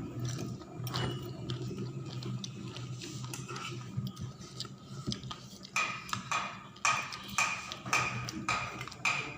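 Crunchy chewing of crisp fried nimki close to the microphone, over a low steady hum. The chewing becomes a regular crunch about twice a second from about six seconds in.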